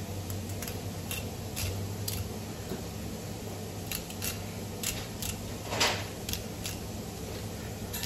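Knife blade drawn along a salmon's backbone, ticking and scraping against the bones in a series of irregular clicks, with one louder, longer scrape about two-thirds through. A steady low hum runs underneath.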